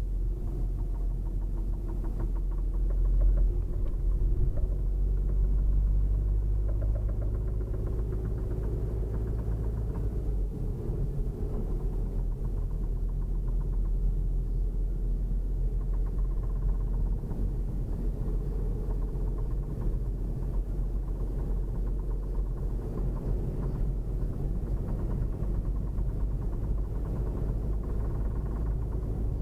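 Engine running steadily with a low hum and a faint, rapidly repeating knock, the knocking noise being the fault under investigation. It swells slightly a few seconds in.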